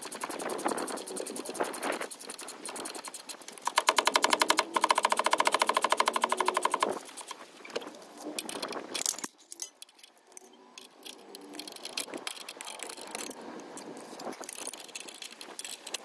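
Ratchet wrench clicking rapidly as it turns the forcing screw of a gear puller that draws the timing-chain sprocket off the engine, loudest from about four to seven seconds in. Quieter metal handling sounds follow.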